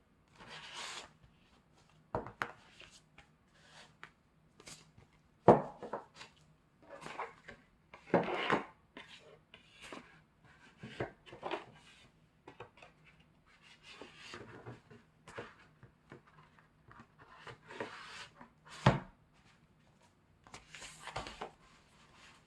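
Album packaging being handled: irregular rustling and light tapping, with a sharper knock about five and a half seconds in and another near nineteen seconds.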